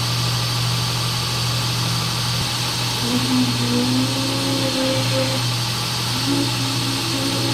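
Dayton 4TJ97 belt and disc sander running steadily, with a motor hum and a thin high whine. The disc is being cleaned with a rubber belt-sander cleaning stick pressed against it, and from about three seconds in, intermittent higher humming tones come and go.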